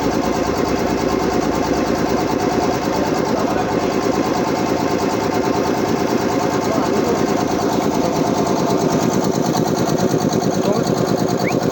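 Puma 5 hp high-pressure air compressor running steadily under test, a fast, even pulsing from its pump.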